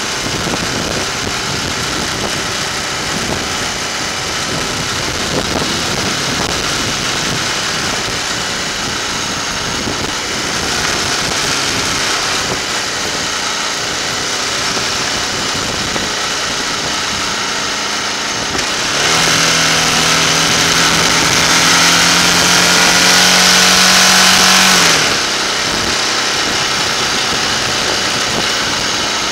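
Motorcycle engine running at low road speed under steady wind and road noise. About two-thirds of the way through, the engine note gets louder and climbs slowly for some six seconds, then falls back.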